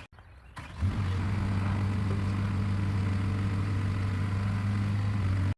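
LiuGong 922F excavator's Cummins diesel engine running at a steady speed, a low, even hum that comes in abruptly about a second in.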